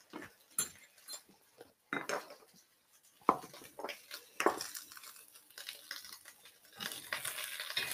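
Glass spice jars with spoons in them being picked up and set down on a kitchen worktop: a string of separate knocks, clinks and clicks. Near the end a faint frying sizzle from the pan comes up.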